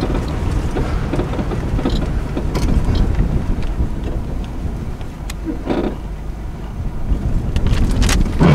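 Holden EH wagon driving along, heard from inside the cabin: a steady low rumble of its straight-six engine and tyres with wind noise, and a few short rattles.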